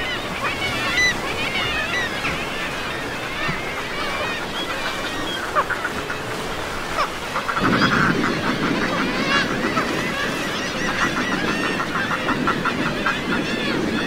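A seabird colony calling: many birds at once, their calls overlapping, over a steady wash of wind and surf. About halfway through, a louder, deeper chorus joins in, with quick rattling calls on top.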